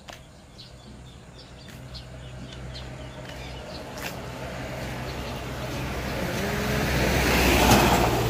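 A truck drives along the road and passes close by, its engine and tyres growing steadily louder to a peak near the end. Birds chirp faintly in the first few seconds.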